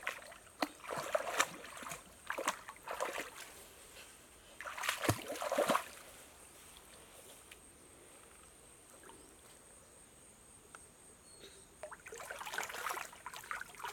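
Shallow water splashing and sloshing in short bursts, in groups during the first few seconds and again near the end, with a near-quiet stretch of several seconds in between.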